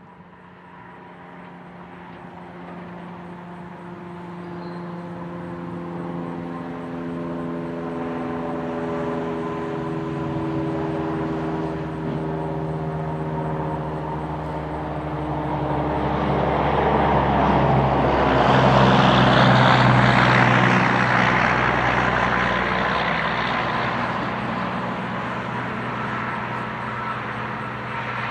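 A passing engine drone whose pitch sinks slowly. It builds for about twenty seconds to a loud rushing peak, then fades somewhat.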